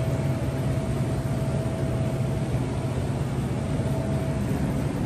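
Steady low mechanical hum with an even hiss, the running of refrigerated display coolers, with a faint thin whine that fades in and out.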